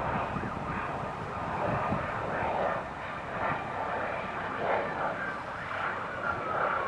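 A steady distant engine drone.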